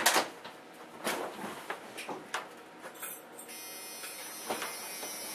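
A few light clicks and knocks. About three and a half seconds in, the ignition is switched on and a steady electric buzz starts: the truck's fasten-seatbelt warning buzzer.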